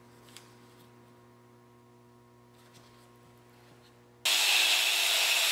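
Faint steady electrical hum. About four seconds in, an angle grinder cuts in abruptly, loud and steady with a harsh hiss of the abrasive disc grinding steel.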